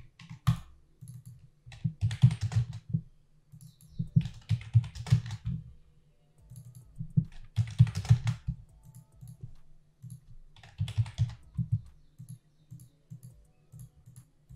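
Computer keyboard typing in four short bursts of quick keystrokes, a few seconds apart.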